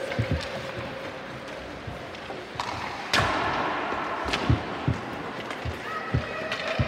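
Ice hockey play: a series of knocks and thuds from sticks, puck and boards ringing around the rink, the loudest a sharp bang about three seconds in.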